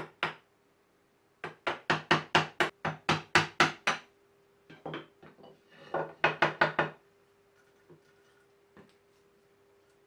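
Mallet blows on a chisel chopping a mortise in oak: one knock, then a quick even run of about a dozen blows at about five a second, a few softer sounds, and a second run of about seven blows.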